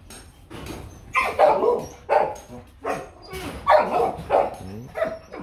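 Dog barking repeatedly: a string of about eight short barks at uneven spacing, starting about a second in.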